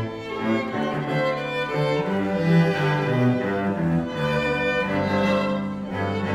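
Youth symphony orchestra playing, led by the string section: violins over cellos and double basses in held notes that change in a flowing line.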